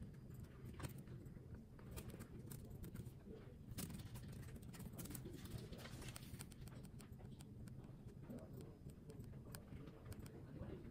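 Quiet typing on a laptop keyboard: irregular soft key clicks, several a second, over a steady low room hum.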